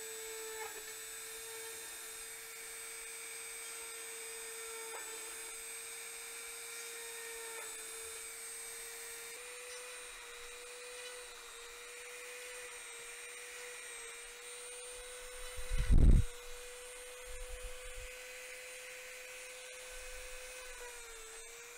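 Dremel rotary tool running with a steady high whine as its bit bores holes through a thin clear plastic orchid pot, the pitch wavering slightly as it bites. A loud low thump about sixteen seconds in.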